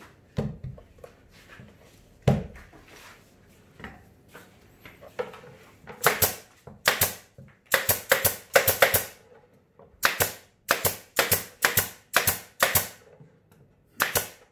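Pneumatic nail gun firing nails into the plywood panels of a speaker box, in quick runs of sharp shots that start about six seconds in. Before that, a couple of single knocks from the panels being handled.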